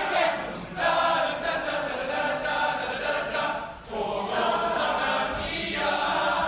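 A group of voices singing together in unison, in phrases of about three seconds broken by short pauses.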